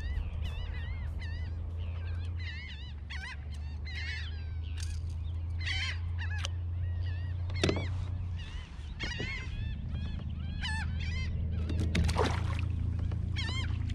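Birds calling over and over in short, wavering honk-like calls, over a steady low rumble.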